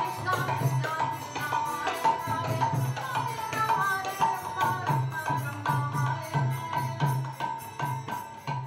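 Music: a melody over a steady, regular low beat.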